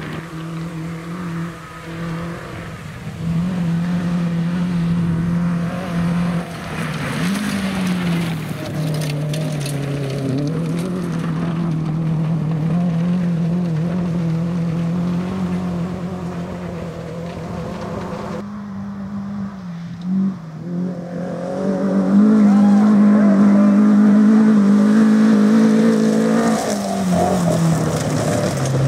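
Rally car engines running hard on a gravel stage, the note rising and dropping as the revs change. About two-thirds through, the sound cuts to another car that gets louder as it comes close, with gravel noise under the engine.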